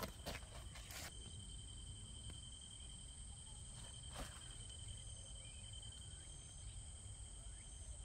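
Faint, steady chorus of insects in the field, under a low wind rumble, with a few soft handling clicks near the start and about four seconds in.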